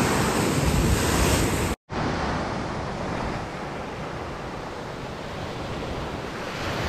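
Lake Superior waves breaking and surging against a rocky shoreline in strong wind, a loud, dense rush that cuts off suddenly about two seconds in. After that comes a quieter, steady rushing background.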